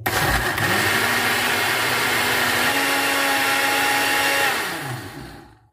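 Electric countertop blender switched on, its motor spinning up and running steadily while blending peach pulp and milk into a milkshake, stepping up once in pitch near the middle. It is switched off near the end and winds down with a falling pitch.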